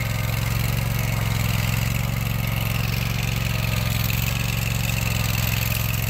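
Vermeer SPX25 remote-control vibratory plow's engine running steadily as the machine pulls conduit through the ground.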